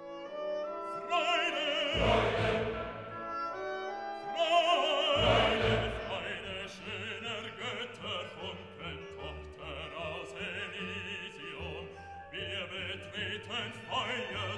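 Operatic singing with orchestral accompaniment: a voice holding notes with wide vibrato over sustained strings, swelling twice in the first half.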